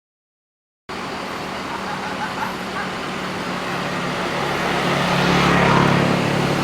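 Tour bus diesel engine running. It starts about a second in and grows louder toward the end.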